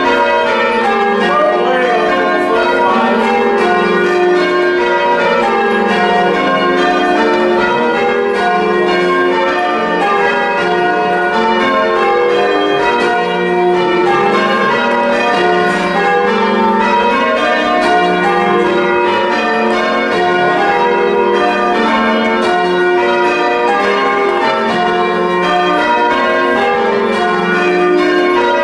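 Church bells being change-rung, ringing plain hunt on five: an unbroken run of evenly spaced, overlapping bell strikes.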